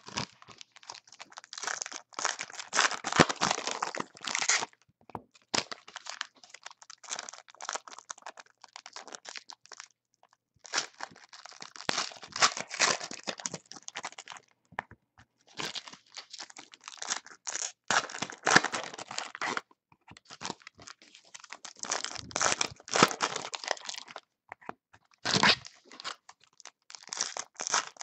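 Foil wrappers of Panini basketball card packs being torn open and crinkled by hand. The crackling comes in bursts a few seconds long, with short pauses as each pack is finished and the next is picked up.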